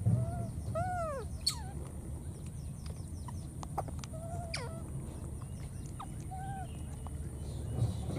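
A few short animal calls, each rising then falling in pitch, over a steady low rumble, with a few sharp chirps in between.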